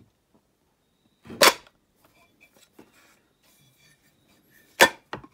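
Two sharp clacks about three and a half seconds apart, with a smaller click after the second: the magnet-lined motor housing of an electric power steering pump being pulled by its magnets onto the armature and snapping against the motor end.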